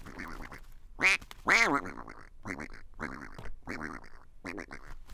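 Cartoon duck quacking, voiced for a duck puppet: a rapid string of short quacks, the two loudest about a second in.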